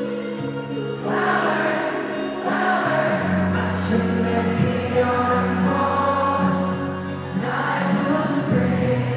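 Live pop ballad heard through an arena's PA: singing over sustained keyboard chords, getting louder about a second in.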